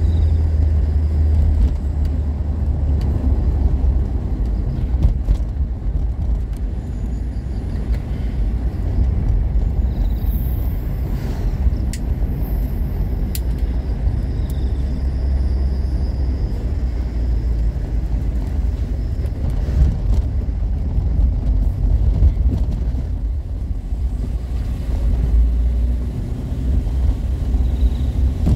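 Steady low rumble of motor vehicles travelling on a highway: engine and road noise.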